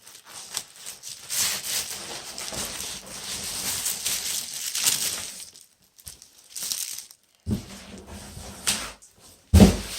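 Packaging crinkling and rustling as it is handled, in a long stretch and then a few shorter bursts, with a loud thump near the end.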